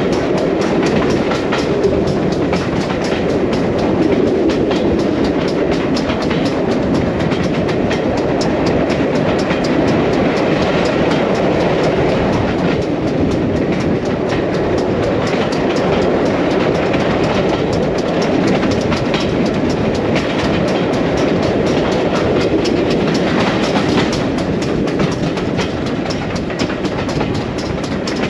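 Passenger carriage of a train hauled by steam locomotive 6990 running along the line, wheels clattering over the rails with a steady rushing noise.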